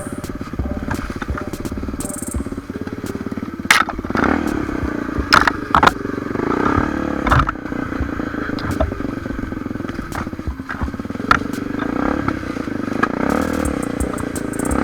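Honda XR250 Tornado's single-cylinder four-stroke engine running under load up a rough trail climb, its pitch and level rising about four seconds in. Sharp knocks and clatter of rocks and the bike's chassis are heard several times over the rough ground.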